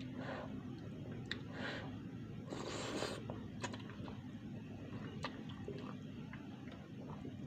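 A person slurping noodles and chewing: two short slurps in the first two seconds and a longer, louder one about three seconds in, with a few light clicks along the way.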